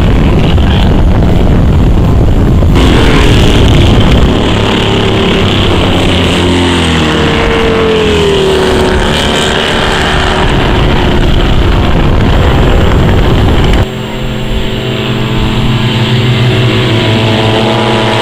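Racing motorcycle engines passing at speed, the pitch falling as bikes go by, then several bikes approaching in a group. The sound changes abruptly about three seconds in and again near the end, where shots are cut together.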